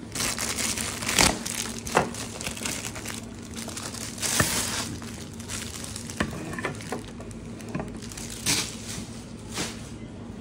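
Clear plastic bag crinkling and rustling as a new replacement helmet visor is pulled out of it, with a few sharp clicks scattered through.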